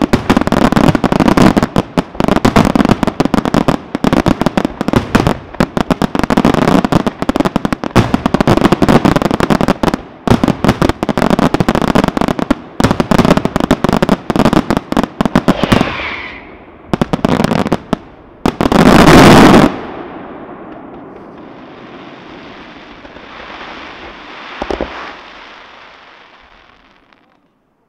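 Aerial fireworks display: a dense, rapid barrage of shell bursts and crackling for about the first sixteen seconds, then a few scattered bursts and one loud blast about two-thirds of the way through, after which it dies away to a fading hiss.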